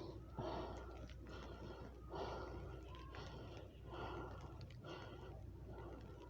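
A person breathing hard and fast close to the microphone, about one breath a second.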